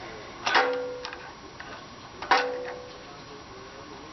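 Two sharp metallic clinks about two seconds apart, each ringing briefly, with a few lighter ticks between them: small metal tools and hardware knocking together during hand work on an engine.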